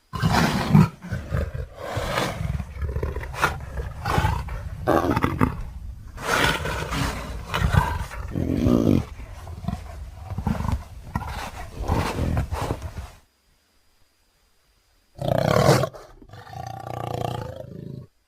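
Big cat roaring and growling: a creature sound effect for the extinct cat Dinofelis, made from leopard and tiger recordings. A long string of rough roars and snarls runs for about 13 seconds and stops. After a short silence, one sharp roar is followed by a lower growl.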